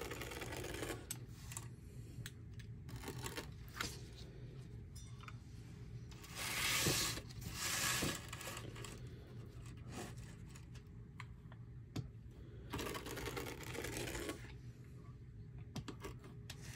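Deco mesh rustling and rasping as it is handled and smoothed on a cutting mat, with scattered light clicks and taps. A rotary cutter slices across the mesh in a longer rasping stroke about two-thirds of the way in.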